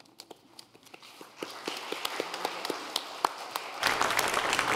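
Congregation applauding: scattered claps that thicken into applause about a second and a half in and grow louder near the end.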